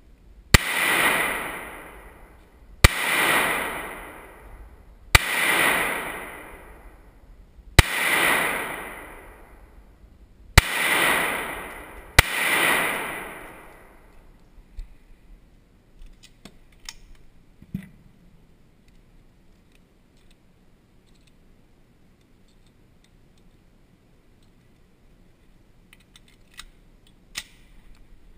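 Six pistol shots, about two to three seconds apart with the last two closer together, each ringing out in a long echo along the rock tunnel of the range. A few light clicks and knocks follow.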